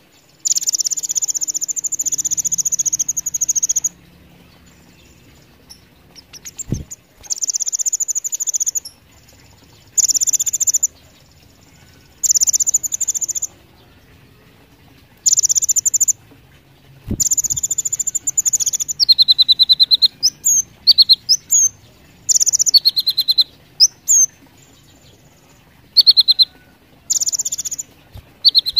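Caged male kolibri ninja sunbird singing loud, high-pitched trilling phrases of one to three seconds with short pauses between. After about twenty seconds the phrases turn shorter and more varied.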